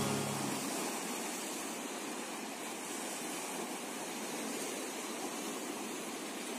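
Sea surf washing over low rocks, a steady even rush. The last held notes of the music fade out about half a second in.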